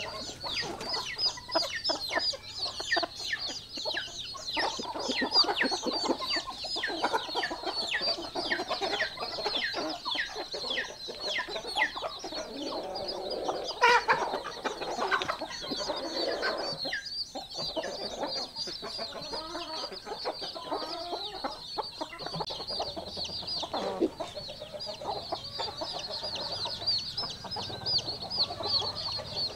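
Chicks peeping rapidly and without pause, with hens clucking underneath and one louder call about halfway through.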